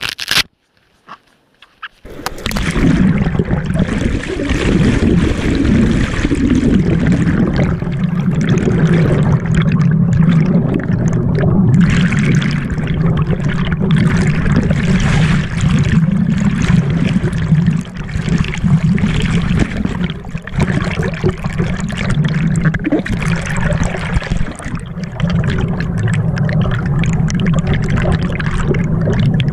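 Stream water rushing and gurgling, loud and steady, setting in suddenly about two seconds in.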